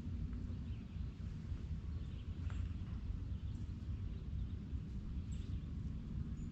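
Wind rumbling on an outdoor microphone, with scattered faint clicks and a few brief high bird chirps.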